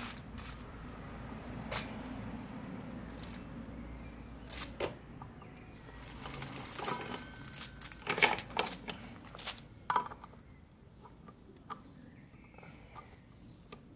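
Irregular metallic clicks and clinks of a motorcycle roller chain being handled, its links knocking together, with a cluster of louder clacks about eight to ten seconds in.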